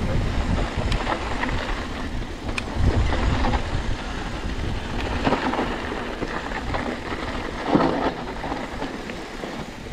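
Continuous rattle and rumble of a bike going over a rough dirt trail, with scattered clicks and knocks from the frame and tyres, and wind on the microphone.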